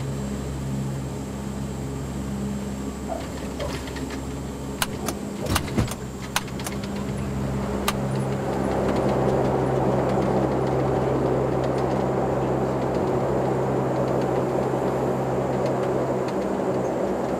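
Aircraft engines and propellers humming steadily, heard inside the cockpit, with a faint steady high whine. A few sharp clicks come about five to seven seconds in. From about eight seconds in the engine noise rises and stays louder.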